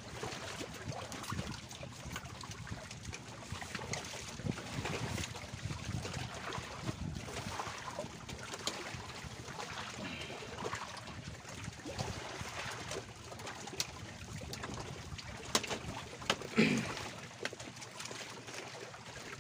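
Water lapping against a floating bamboo raft, a steady wash with scattered small clicks and knocks, and one brief louder sound near the end.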